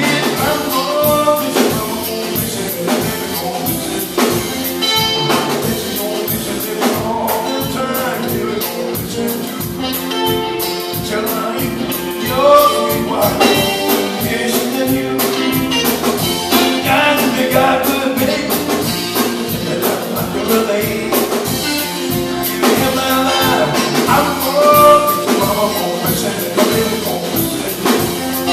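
Live blues band playing: guitar, electric bass and drum kit with a steady beat.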